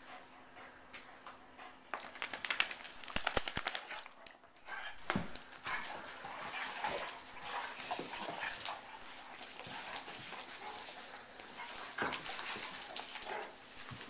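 A Weimaraner and a German Shorthaired Pointer play-fighting: dog vocal sounds mixed with scuffling, sharp clicks and thumps of the wrestling. It starts about two seconds in.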